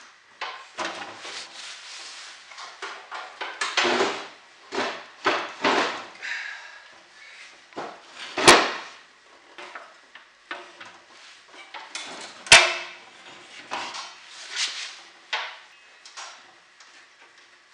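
Snowblower housing and drive parts being worked together by hand: irregular metal scraping, rubbing and clunking, with two sharp knocks, one about halfway through and another some four seconds later.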